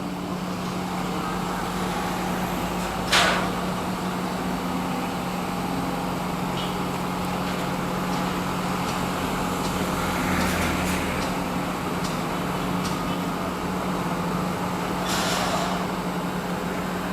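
Heavy construction machinery running with a steady engine drone, with one sharp metallic bang about three seconds in and a brief hiss near the end.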